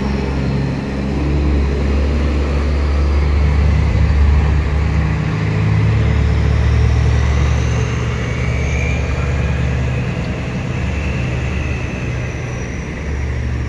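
Oversized-load trucks and their police escort driving past: a deep, steady engine rumble that swells to its loudest about four to seven seconds in and then eases, with a faint high whine gliding above it.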